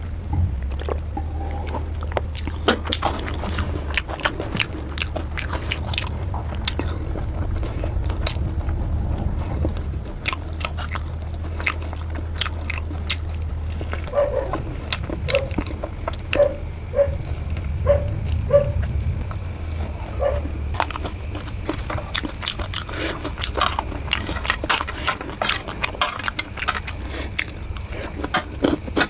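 Close-miked eating sounds: a drink swallowed at the start, then biting and chewing a sauce-coated chicken lollipop, with many sharp wet mouth clicks and smacks. A steady low hum runs underneath.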